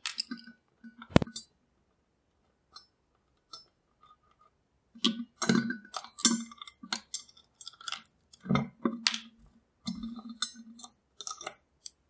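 Precision screwdriver working small steel screws out of a steel lock plate, with irregular metal clicks, scrapes and clinks as the screws are set down. There is a quiet stretch before the clicks become busier about five seconds in.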